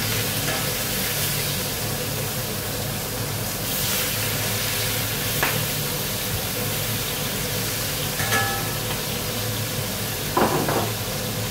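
Two steaks searing in a smoking-hot frying pan with a little oil: a loud, steady sizzle, with a few light clicks.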